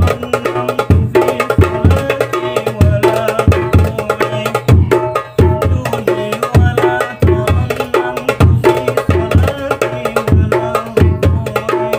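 Newly made hadroh drums test-played together in a fast rhythm: a darbuka's sharp slaps and quick rolls over deep, recurring strokes of large hadroh bass drums.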